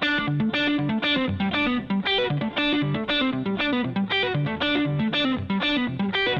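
Background music led by a plucked, slightly distorted guitar: a quick, evenly repeating pattern of notes that starts abruptly out of silence.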